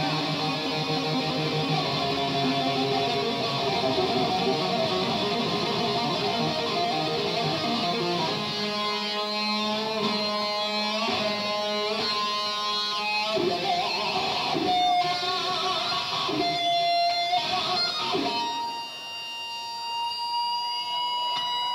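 Unaccompanied electric guitar solo through an amplifier. Full chords come first, then fast repeating runs of notes from about eight seconds in, then single held notes, ending on one long sustained high note.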